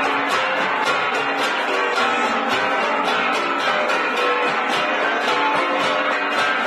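Ensemble of flat hand-held gongs being beaten in a fast, steady rhythm, with overlapping metallic strikes ringing at several different pitches.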